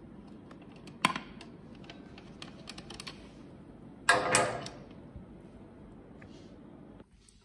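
Small metallic clicks and taps from a wrench undoing the bolts of a 50cc scooter's variator cover, with a sharper click about a second in and a louder clatter about four seconds in.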